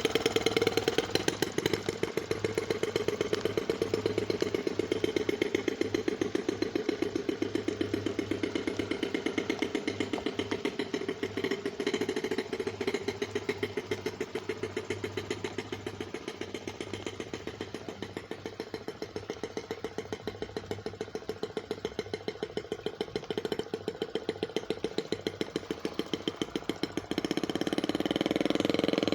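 Gas-powered RC boat's small two-stroke engine running steadily with a fast, even buzz of firing strokes. It grows fainter through the middle and comes up louder again near the end.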